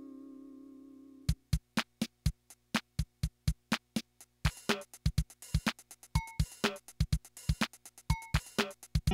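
Yamaha PS-6100 home keyboard: a held synth note with vibrato fades away, then the built-in rhythm section starts a preset drum-machine pattern of steady kick and snare hits about a second in, with hi-hat or cymbal added about halfway through.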